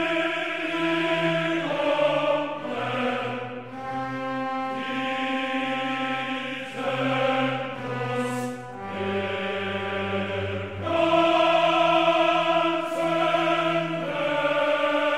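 Slow background music of held chords that shift to new pitches every second or two.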